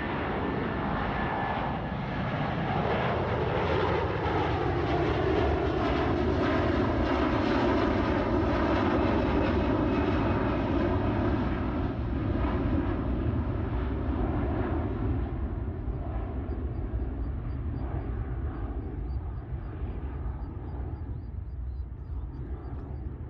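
Airbus A330 jet engines at takeoff thrust as the airliner climbs out past the listener: a loud roar that builds, holds for several seconds, then slowly fades away. Early on, a tone in the roar drops in pitch as the aircraft passes.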